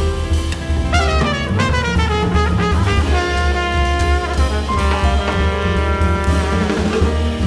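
Small jazz band playing: trumpet over double bass, piano and drum kit. The horn line falls in quick steps, then settles into held notes.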